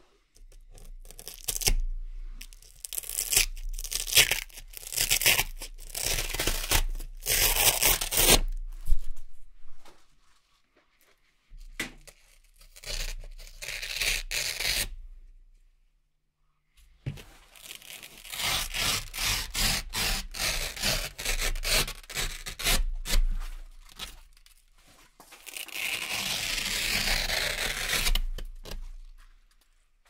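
Velcro hook-and-loop pieces being peeled off a Velcro board, ripping in quick repeated strokes. There are several bursts with short pauses between them, and one longer, steady rip near the end.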